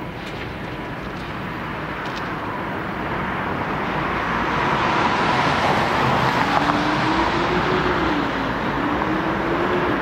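A vehicle engine over a steady rumbling din. It grows louder partway through, and in the last few seconds its pitch rises and falls.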